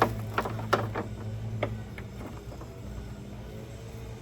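Several sharp clicks and light knocks in the first couple of seconds, from hand work on the side luggage compartment's small gas shock and its mounts; a steady low hum runs underneath.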